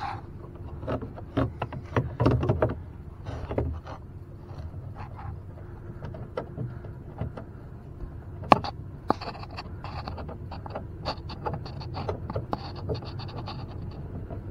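Hands working at the ceiling assembly of an RV roof air conditioner, undoing wing nuts on its control panel: a run of small clicks, knocks and scrapes, with one sharp click about halfway through and a scratchy stretch after it, over low handling rumble.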